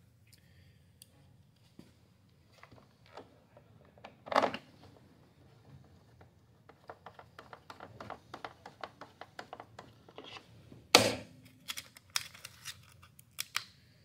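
Hand-tool work on a Stihl backpack blower's plastic housing as its bolts go back in. Scattered clicks, a knock about four seconds in, then a run of quick small clicks as a fastener is worked in with a tool, and a sharp knock about eleven seconds in.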